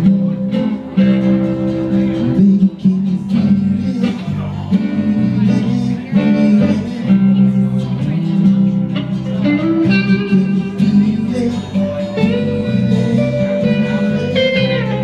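Live band playing a slow blues-rock song: electric guitar, acoustic guitar and bass guitar together, with held, bending guitar notes.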